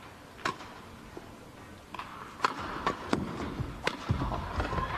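Badminton rally in a sports hall: a handful of sharp, separate smacks of rackets hitting the shuttlecock, most of them bunched together in the second half, with low thuds of players' shoes on the court near the end.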